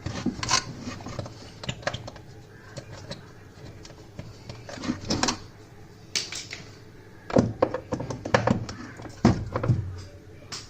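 Irregular clicks, knocks and scrapes of hand tools working on a washing machine's gearbox mounting, with a thicker cluster of knocks near the end.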